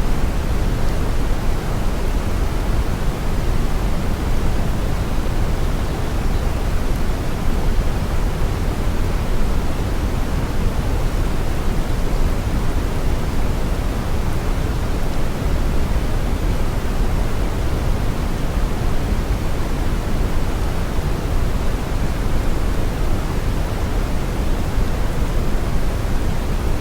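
Steady brown noise: a deep, even hiss, strongest in the bass and thinning out toward the treble, unchanging throughout.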